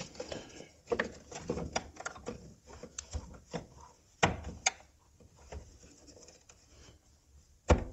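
Scattered plastic clicks, taps and knocks from hands working fuel-line quick-connect fittings and hoses, with a sharper pair of clicks about four seconds in and another knock near the end.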